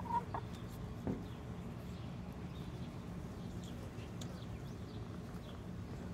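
Backyard hens: a short call right at the start, then quiet, with faint high chirps from about three and a half seconds in over a steady low background hum.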